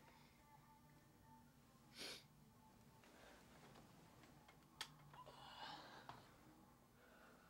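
Near silence: faint room tone, with a short soft breath-like swish about two seconds in and a single click a little before five seconds, followed by faint muffled rustling.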